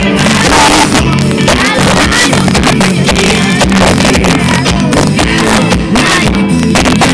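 Live pop-rock band playing loud through a big PA system, with drums, bass and electric guitar and a frontman singing into a microphone.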